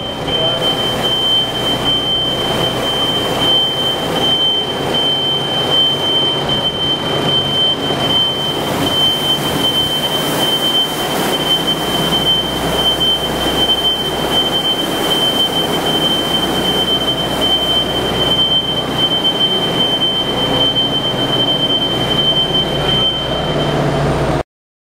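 Manitou telehandler running as it pushes a wide bristle push broom across a concrete warehouse floor, a loud steady machine-and-scraping noise. A steady high whine sits over it and stops near the end.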